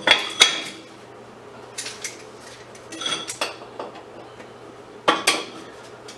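Locking vice grips clinking and scraping against metal while working a stuck bolt loose, in four bursts of sharp metallic clicks about a second or two apart.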